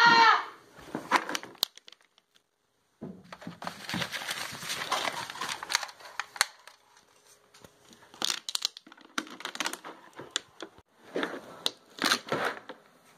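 Rustling and crinkling handling noises with scattered sharp clicks, broken by a brief silent gap about two seconds in.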